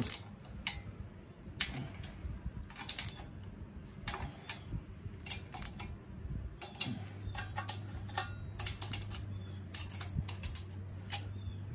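Socket ratchet clicking in short bursts as the cylinder head nuts on an air-cooled VW Beetle 1600 dual-port engine are loosened one after another.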